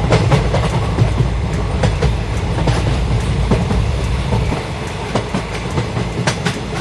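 A loud, steady clattering rumble from a running machine or vehicle, thick with irregular clicks and knocks.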